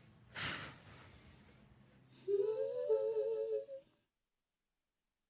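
A quiet, wordless moment in a pop song: a short breathy rush of noise, then about two seconds in a hummed, wavering vocal phrase lasting a second and a half. After that the track cuts to dead silence.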